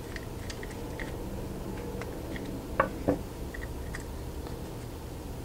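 Small metallic clicks and ticks from a hand driver working the screw that holds the fiber scrap collector on a Fujikura AFL CT-06 fiber cleaver, with two sharper clacks about three seconds in.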